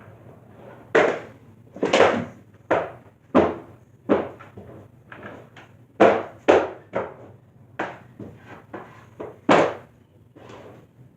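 Skateboard deck and wheels knocking and clattering on homemade wooden ramps and floor: about a dozen sharp, irregular knocks, each ringing briefly in a small room.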